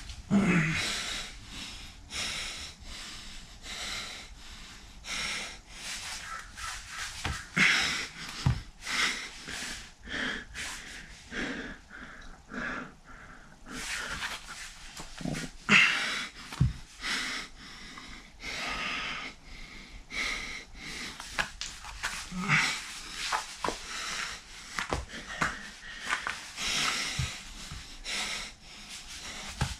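A man breathing hard and unevenly under the strain of holding a forearm plank: quick, noisy breaths and puffs, roughly one or two a second, some louder than others.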